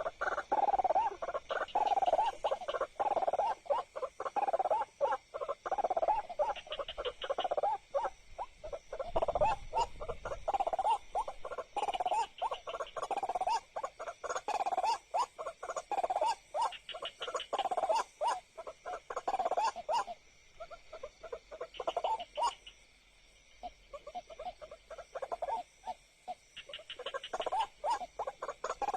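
White-breasted waterhen calling over and over, about once a second, with a pause a little after halfway. Night insects give short high trills over it.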